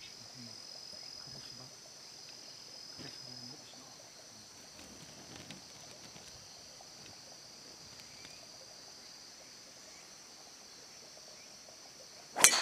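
Steady high-pitched chorus of insects, then near the end a single sharp crack as a golf driver strikes the teed ball, by far the loudest sound.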